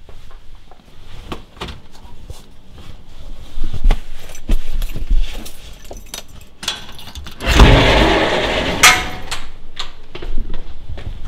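Keys jangling among small clicks and knocks, then a loud rustling rush about eight seconds in, ended by a sharp knock.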